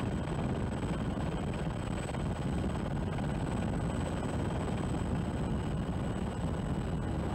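Helicopter in flight, heard from aboard: a steady, dense low drone of engine and rotor.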